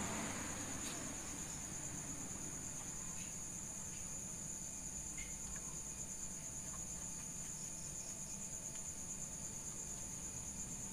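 Crickets chirring: a steady, high-pitched, rapidly pulsing trill. A few faint light clicks sound over it, as a nut is fitted by hand on the motorcycle's kick-start shaft.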